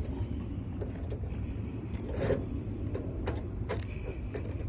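Freshly code-cut car key clicking and scraping in a Ford Ranger door lock as it is pushed in and worked, with several small metallic clicks and one louder knock about two seconds in, over a steady low rumble.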